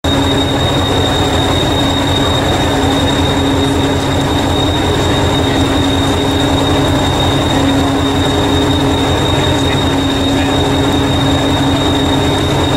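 Heritage Class 201 'Hastings' diesel-electric multiple unit 1001, its English Electric four-cylinder diesel engine idling steadily. A low throb is overlaid by a steady hum and a thin high-pitched tone.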